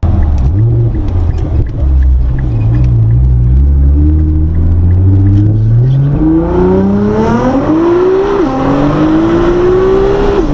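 Nissan GT-R R35's twin-turbo V6 under hard acceleration. It rumbles low at first, then its note climbs steadily, drops sharply at an upshift, climbs again, and drops with a second upshift at the end.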